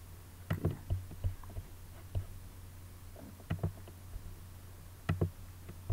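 Scattered computer mouse clicks, several in quick pairs, over a steady low hum.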